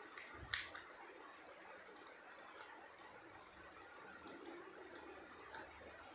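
Pomeranian puppy gnawing on a small bowl, its teeth making faint clicks and scrapes, with a sharper crack about half a second in and scattered ticks after.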